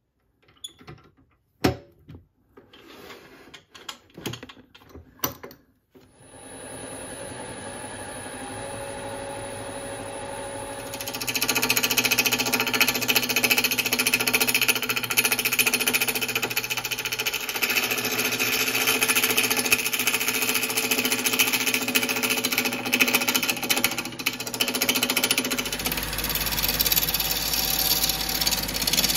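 A few clicks and knocks as the resin-and-bamboo blank is fitted into the wood lathe's chuck, then the lathe starts and runs with a steady hum. A few seconds later a gouge bites into the spinning blank, and a loud continuous scraping hiss of cutting goes on to the end.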